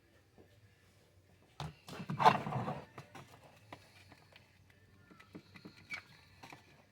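Plastic body parts of a Power Wheels ride-on car knocking and rattling as they are handled and pushed into place, with a louder clatter about two seconds in and scattered small clicks after.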